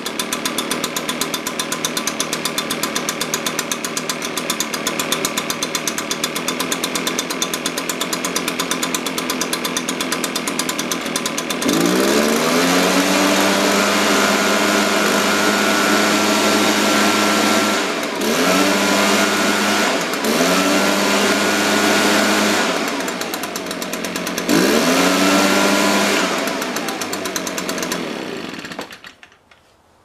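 Echo PB-580T backpack leaf blower's two-stroke engine idling with a fast, even beat, then revved up four times, each run-up rising to a high whine and falling back, and shut off about a second before the end. The carburetor has just been tuned and the engine runs cleanly, though the owner judges the low-speed mixture still a little rich.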